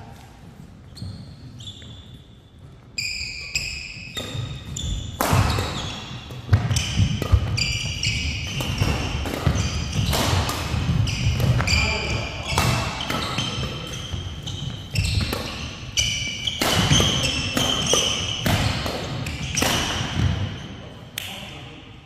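Badminton doubles rally: rackets hitting the shuttlecock in quick exchanges, with court shoes squeaking on the floor, starting a few seconds in and ending just before the close.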